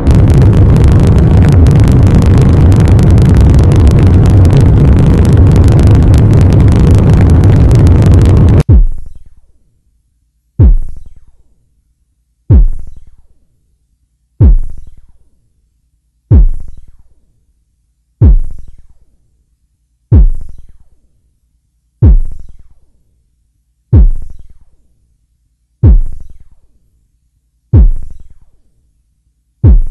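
Electronic industrial noise music: a loud, dense wall of distorted synthesizer noise that cuts off suddenly about nine seconds in. It is followed by a slow, regular deep electronic bass hit, about one every two seconds, each falling in pitch and fading away before the next.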